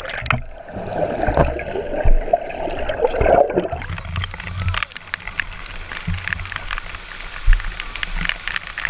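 Swimming-pool water heard through an action camera that is briefly held underwater: a muffled bubbling and gurgling with the high end cut off. About four seconds in the camera comes out of the water, and splashing and sloshing of shallow pool water follow, with sharp little splashes and knocks.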